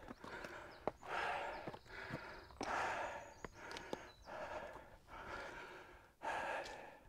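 A man breathing hard while climbing a steep rocky trail, a heavy breath every second or two. A few light clicks of steps come between the breaths.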